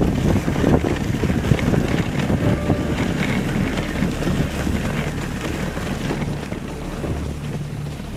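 Rushing wind noise on the microphone mixed with a rough, irregular rush from a dog sled moving over snow. It grows quieter toward the end, where a low steady hum comes in.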